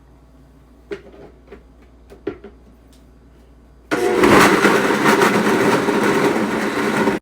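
A couple of light knocks, then a kitchen blender switched on, running steadily and loudly for about three seconds before it stops abruptly.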